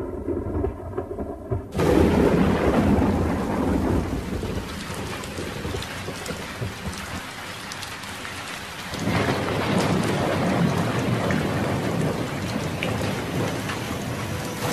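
Thunderstorm: a sudden loud clap of thunder about two seconds in, rumbling away over the next several seconds, then steady heavy rain.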